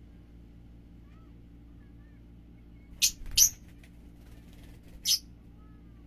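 Fischer's lovebirds giving sharp, shrill, very high-pitched calls: two in quick succession about three seconds in and one more near five seconds, with a few faint soft chirps before them over a faint steady low hum.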